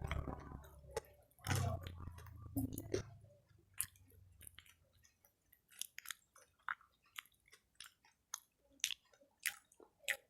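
A person chewing fried snacks close to the microphone: a string of short, irregular wet smacks and clicks. A low rumble fades out over the first few seconds.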